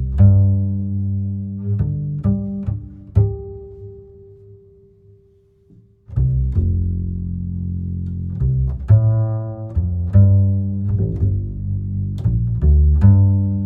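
Background music of low, deep notes played one after another. It fades out about five seconds in and starts up again about a second later.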